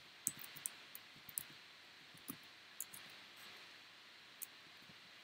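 Faint, irregular clicks and taps of a plastic trading-card holder being handled, about half a dozen over a steady background hiss.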